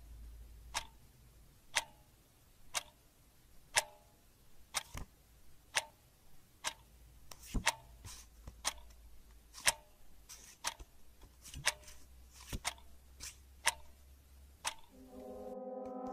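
A clock ticking steadily at about one tick a second. Near the end a low droning tone swells in.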